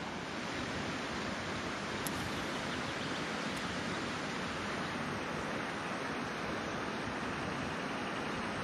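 Steady rush of river water, an even hiss and roar with no let-up.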